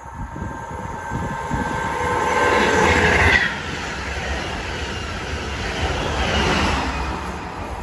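SJ X2000 high-speed electric train passing through the station at speed. A whine and rumble build to their loudest about three seconds in as the front of the train goes by, then the coaches' rumble carries on and fades near the end.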